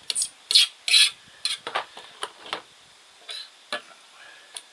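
A metal fork combing through a washed bonsai root ball and scraping on a ceramic tile, in a run of short, scratchy strokes, loudest in the first second or so.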